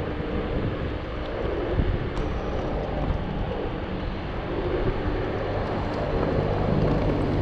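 Wind rushing over a chest-mounted action camera's microphone, mixed with tyre and road noise, as a Zero 9 electric scooter rides along a paved street. The rush gets louder and deeper over the last few seconds.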